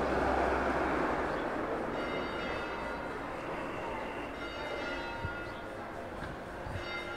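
Bells ringing, several pitches sounding together, starting about two seconds in and coming in again near the end, over a steady background hiss.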